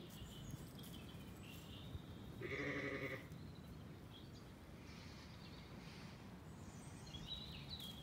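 A Zwartbles sheep bleats once, briefly, about two and a half seconds in, over a quiet background.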